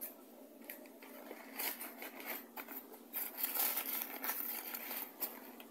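A bag rustling and crinkling as a hand grabs and handles it, in irregular bursts that are busiest from about three to five seconds in.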